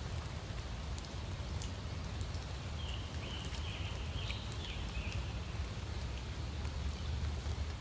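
Steady rain falling on a pond and the woods around it, with scattered patter of individual drops. A faint high call sounds for a couple of seconds about three seconds in.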